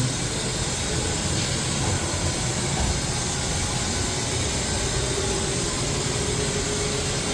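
Haas VF-12 CNC vertical machining center running, a steady, even hiss with a faint steady tone entering partway through.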